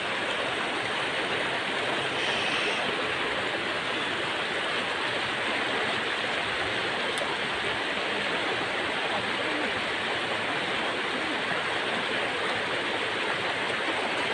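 Shallow river water rushing steadily over rocks, an even noise with no breaks.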